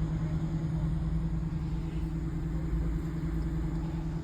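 Car engine running with a steady low hum and no change in pitch.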